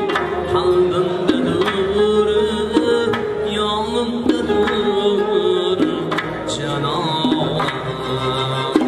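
Folk-style instrumental music with a hand-drum beat under a sustained melody whose pitch steps to a new note every second and a half or so.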